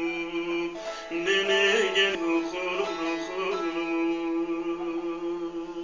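Bağlama (saz, Turkish long-necked lute) strummed and plucked in an instrumental passage between the sung lines of a Turkish folk song, its notes ringing on over a steady drone.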